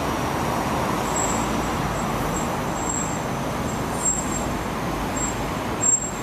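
Steady city street traffic, cars and SUVs driving through a signalled intersection, with a short knock near the end.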